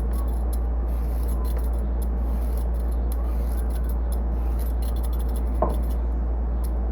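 Steady low hum with faint scraping and clicking of vegetables being prepared by hand, and a brief squeak a little before the end.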